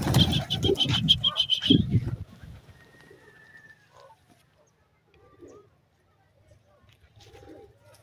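Domestic pigeons cooing. For the first two seconds a louder jumble of low sounds with a rapid, evenly pulsed high-pitched trill over it, then only a few soft coos.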